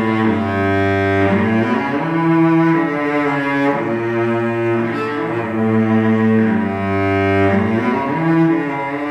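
A cello built on the 1740 Montagnana model, bowed in a slow phrase of long held notes, each lasting a second or two, with a full, resonant low tone.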